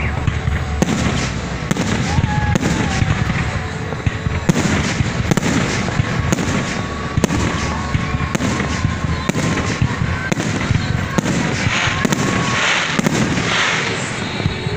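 Fireworks display: aerial shells bursting in a rapid, irregular run of bangs, several a second, over a continuous low rumble.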